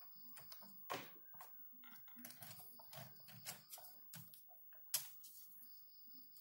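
Faint clicks, taps and rustling of gloved hands handling computer parts: a graphics card and its power cable connectors. A sharper click comes about a second in and another about five seconds in.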